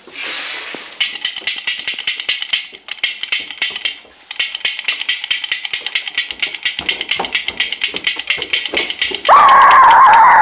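A small handheld toy making rapid, dry clicking, like a ratchet, many clicks a second, with a short pause about four seconds in. Near the end it gives way to a loud wavering pitched squeal that drops away.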